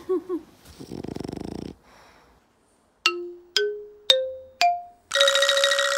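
A French bulldog gives one short, rattling snore. Then come four single chime notes, each higher than the last and each ringing out, and a bright music sting with falling notes.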